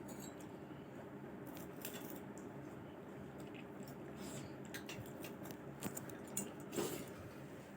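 Sounds of eating at a meal: scattered small clicks, taps and chewing noises, with a few sharper clicks near the end, over a steady low hum.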